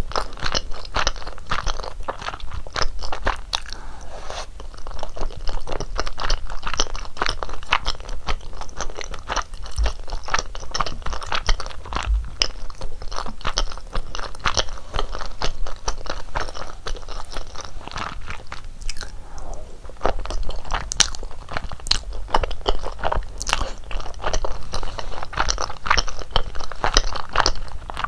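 Close-miked chewing and biting of rosé tteokbokki, a dense run of small mouth clicks many times a second, with a short lull about two-thirds of the way through.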